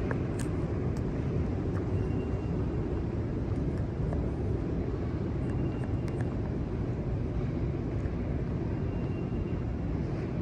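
Steady low rumble and hiss of the ambient drone in an empty underground metro station.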